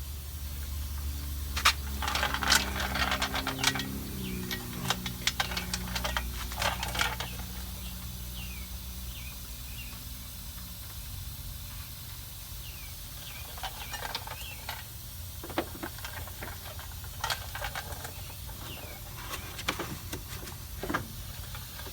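Irregular clicks and metallic clinks from hand work on a minivan's rear shock mounting: tools, nuts and a jack being handled. They come in two clusters, one in the first several seconds and another in the latter half. Under the first cluster runs a low hum that wavers in pitch.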